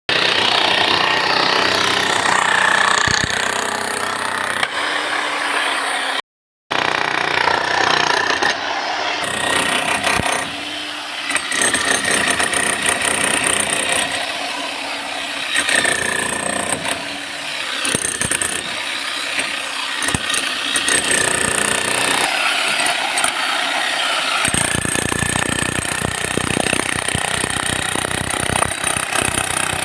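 15 kg concrete breaker hammering, a fast continuous run of impacts with a loud, gritty noise. It cuts out for a moment about six seconds in, and the hammering is heaviest and most even in the last five seconds.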